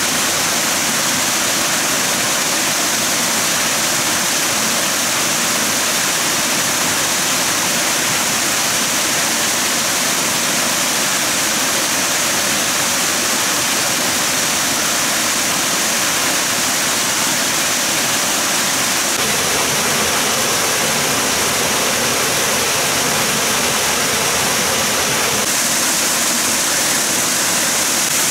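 Steady loud rush of flowing water. Its tone shifts suddenly about two-thirds of the way through and again near the end.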